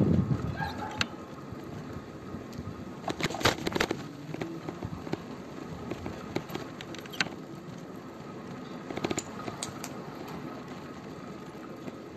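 Wind buffeting the phone's microphone for the first half-second, then quiet outdoor background with scattered light clicks and taps and a couple of short chirps.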